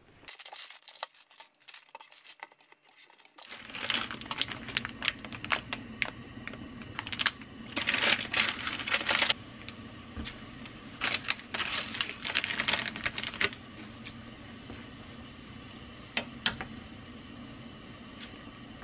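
Plastic food packaging crinkling and rustling in loud bursts, then a steady hiss of a pot of water on a gas burner, with a light click or two near the end.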